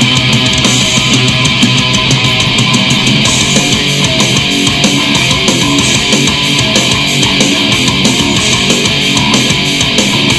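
Heavy metal song playing from a 7-inch vinyl single on a turntable: loud, steady guitar-driven music with a driving beat.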